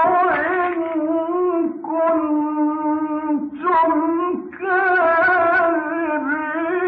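A man's high voice chanting a Quran recitation in long, held melodic phrases with wavering ornaments, broken by short breaks for breath.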